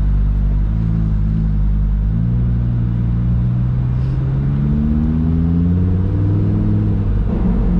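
Car engine heard from inside an open-top convertible on the move, its pitch shifting a couple of times in the first two seconds, then rising steadily as the car accelerates and levelling off near the end.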